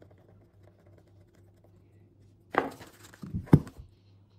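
Faint small clicks of a screwdriver tightening a screw into the plastic case of a Mindray BeneHeart C series AED, then a few louder knocks and rustling of the device being handled, from about two and a half seconds in to three and a half.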